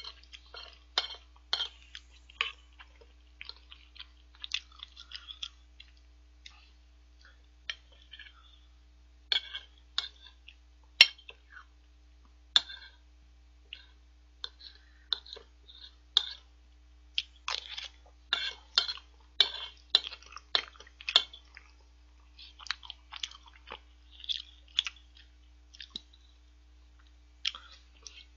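Close-miked chewing of curry and rice: wet mouth smacks and clicks, coming irregularly several times a second with short pauses. One sharp click about eleven seconds in is the loudest sound.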